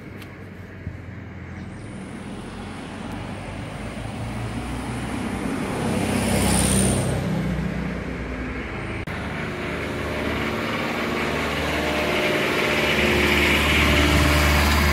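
Street traffic: a car drives past about six seconds in, then a vehicle's engine idles steadily, growing louder toward the end.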